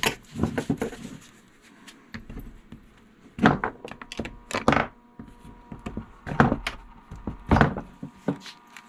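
A screwdriver knocking and prying freshly cast lead cannonball sinkers out of a metal mold: a series of irregular sharp knocks and clunks, with the lead weights dropping onto the wooden bench.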